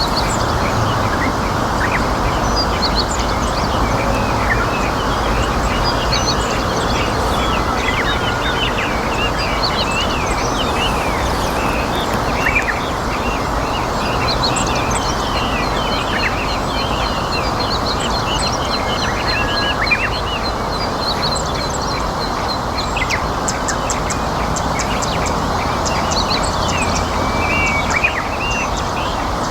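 Small birds chirping and calling in many short notes over a steady rush of river water, with a rapid, even trill near the end.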